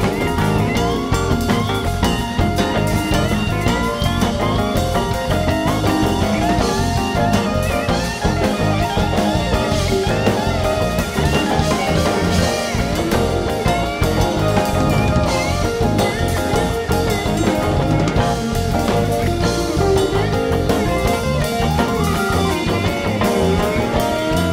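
Live rock band playing an instrumental jam: electric guitars, bass and drum kit, with a lead line that bends and slides in pitch over the steady beat.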